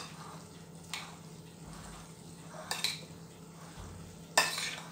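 A metal spoon clinking and scraping against a bowl as a potato salad is stirred. There are a few short knocks: one about a second in, a pair near three seconds, and the loudest near the end.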